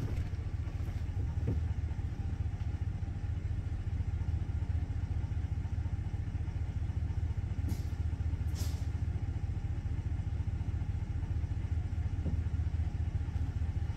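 Pickup truck engine idling steadily, a low hum heard from inside the cab. A couple of brief faint clicks come about eight seconds in.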